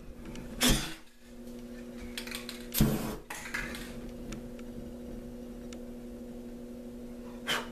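Ignited spray-paint fumes burning out on a canvas: short rushing bursts about a second and three seconds in and again near the end, with faint ticks, over a steady low hum.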